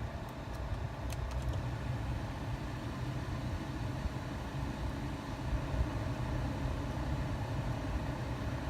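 Car engine idling steadily, with a few faint ticks about a second in.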